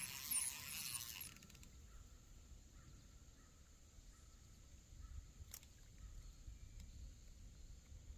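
Faint wind rumbling on the microphone, with a short burst of high chirps and hiss in the first second and a single sharp click about five and a half seconds in.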